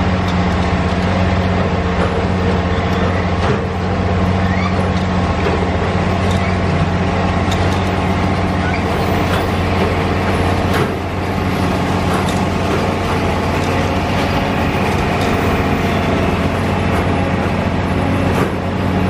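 Track-laying machine working: its heavy engine running steadily with a deep hum, with scattered metallic clicks and knocks over it.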